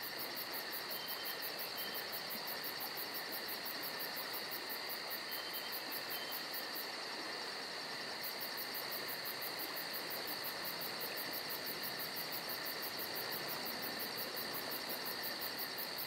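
Steady chorus of chirping insects, with a fast, even pulsing high up over two held shrill tones.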